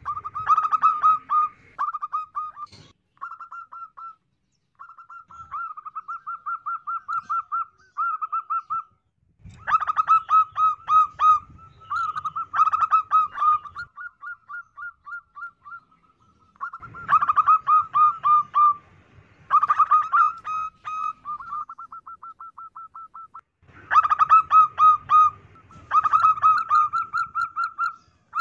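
Female zebra dove (perkutut) singing: runs of rapid staccato cooing notes, with louder bouts every few seconds and softer, quieter runs between.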